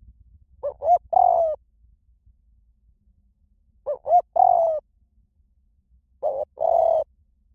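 Spotted dove cooing: three phrases about three seconds apart, each a couple of short coos followed by a longer drawn-out coo.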